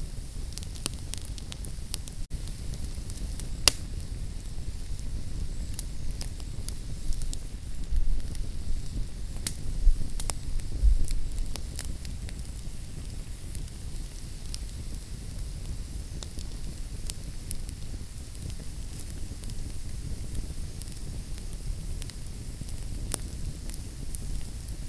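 Fire in a fireplace crackling: scattered sharp pops and snaps over a steady low rumble, with a few louder pops near the middle.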